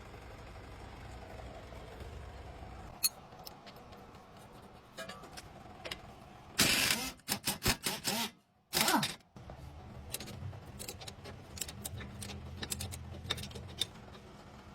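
A car running with a low steady hum, broken by scattered sharp clicks and knocks and two loud bursts of noise about halfway through, the second falling in pitch.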